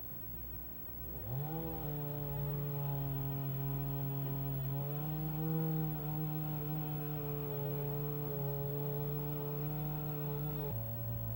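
Chainsaw revving up about a second in and held at a steady high speed, dropping back to a lower speed near the end.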